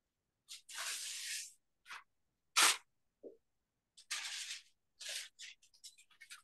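A spoon scraping moist bread-cube stuffing out of a stainless steel mixing bowl: several short rustling scrapes, with one sharp clink of spoon on metal about two and a half seconds in.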